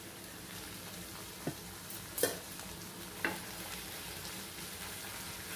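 Brinjal pieces and crushed garlic sizzling in hot oil in a frying pan while being stirred with a spatula. The spatula knocks against the pan three times, about a second apart.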